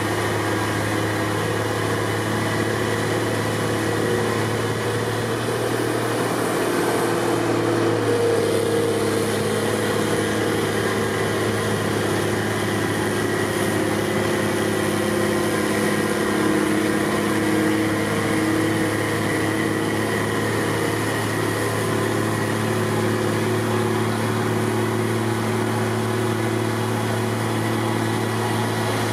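Heavy snow-clearing machinery running steadily, a continuous engine hum with a few tones that drift slightly in pitch.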